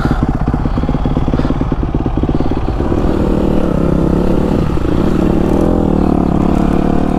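Honda dirt bike's single-cylinder four-stroke engine running at low revs with a rapid, even pulse, then about three seconds in opening up and running at steadier, higher revs as the bike rides off along the trail.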